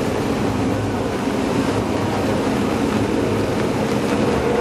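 Steady hubbub of a large crowd of cyclists and spectators gathered at a race start, many voices blending into one continuous murmur.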